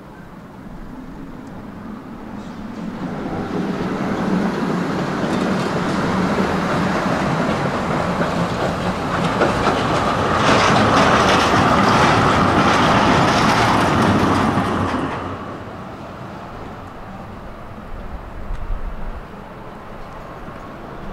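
Tram running past on the rails: the rumble and clatter of its wheels builds over several seconds, is loudest for a few seconds as it passes, then falls away quickly.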